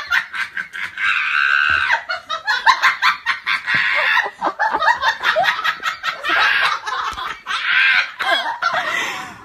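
A person laughing hard and without a break, in rapid high-pitched bursts.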